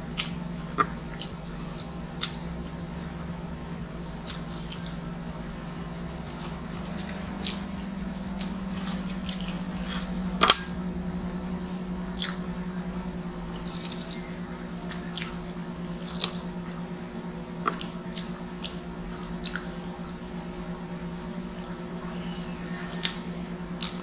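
Close-miked chewing of food (noodles and pizza), with small wet mouth clicks and smacks over a steady low hum. A single sharp knock about ten seconds in.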